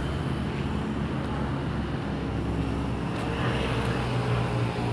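An engine running steadily with a low hum, amid outdoor noise.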